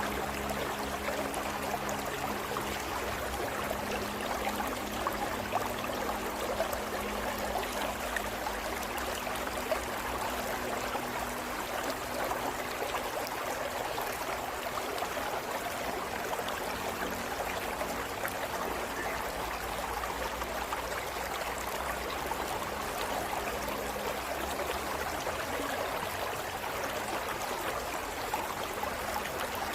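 A stream running steadily over rocks, an even rush of water, with faint low steady tones under it that die away about two-thirds of the way through.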